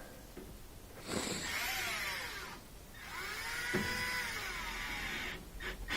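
Power drill running in two bursts, its motor whine rising in pitch as it spins up and dropping as it stops, while tightening the hose clamp back onto the washer's drain pump hose.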